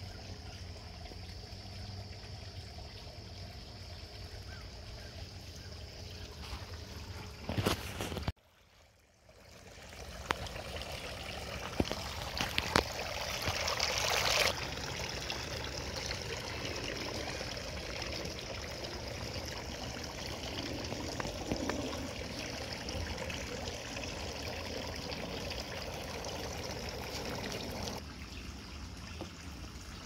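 Water trickling and splashing down the bowls of a tiered garden water fountain, a steady wash that swells loudest a little before the middle, with a few sharp clicks. The sound briefly cuts out about eight seconds in.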